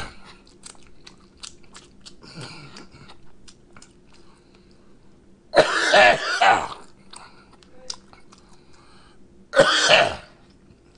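A man coughing hard to clear food that went down the wrong pipe: two loud coughing fits, about six and ten seconds in, and a weaker cough or throat-clear near two seconds in. Small mouth clicks between them.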